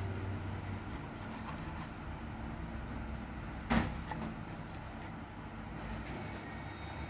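A kitchen knife slicing a cha-om omelette on a wooden cutting board, with a few soft knocks of the blade on the wood and one sharp knock a little before four seconds in. A steady low rumble runs underneath.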